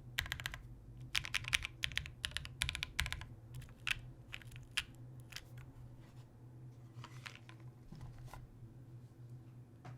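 Keystrokes on a Matrix Corsa mechanical keyboard with an aluminium plate, lubed JWK Bluey switches and GMK WOB keycaps. Fast runs of clicky keypresses in the first three seconds thin out to scattered single keystrokes, and the last few come a little after the eight-second mark.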